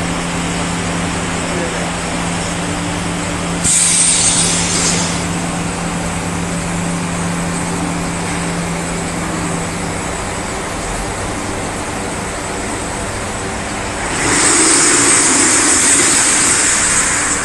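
Machinery of a door laminating and pressing line running with a steady hum, whose low tone drops away about ten seconds in. Two loud hisses of compressed-air release cut through it, a short one about four seconds in and a longer one of about three seconds near the end.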